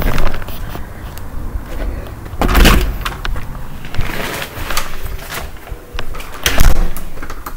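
Dishes being handled and washed: irregular clinks and knocks, with two louder rushing bursts, one about a third of the way in and one near the end.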